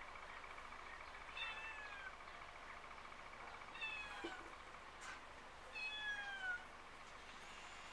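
A domestic cat meowing three times, each meow short and falling in pitch, over a steady high buzz.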